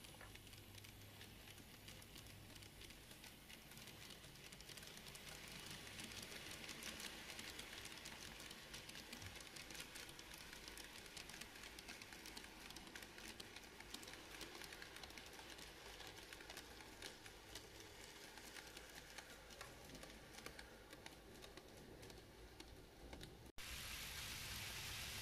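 N-gauge model freight train of container wagons and tank cars rolling past on the track: a faint, fast patter of small clicks from the wheels and running gear, loudest about halfway through.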